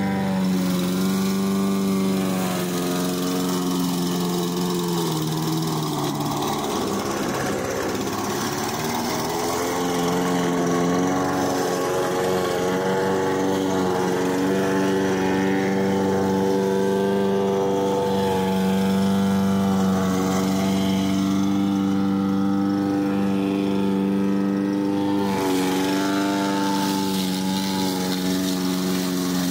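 Brand-new lawn mower engine running unevenly, its speed sagging and picking back up over and over: it bogs down deeply about seven seconds in, recovers, and dips again near the end. The uneven running is the trouble the owner complains of in this new mower.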